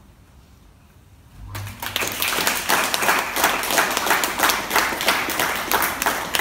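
An audience applauding. After a quiet first second or so, many people start clapping together and keep going steadily.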